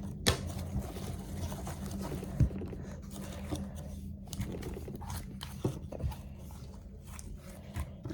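Thick clear slime being pulled apart into blobs by hand, with scattered small taps and clicks against a steady low hum.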